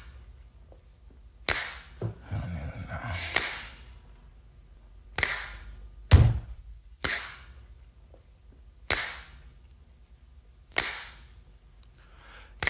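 Sparse sharp percussive hits in the soundtrack, about seven at uneven intervals, each ringing out in a long reverberating tail.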